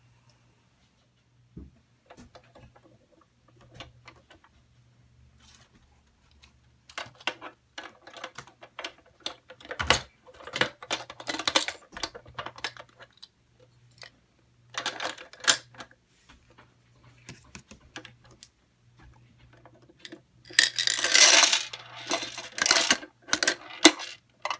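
Hard plastic toy parts clicking and knocking as a Playmobil recycling truck and its blue wheelie bin are handled. Near the end comes a longer, louder rattling clatter as small plastic toy cans and bottles tip out of the bin into the truck's rear hopper.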